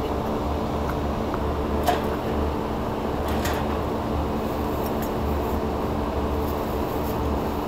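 Steady mechanical drone of rooftop air-conditioning equipment running, a low hum with several steady tones. A few light clicks and one short knock about two seconds in from the metal blower housing being handled.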